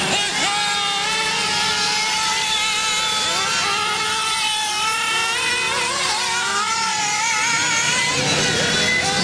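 Several nitro RC late model cars racing round a dirt oval, their small two-stroke glow engines whining high. Each engine's pitch rises and falls as the cars accelerate down the straights and back off for the turns.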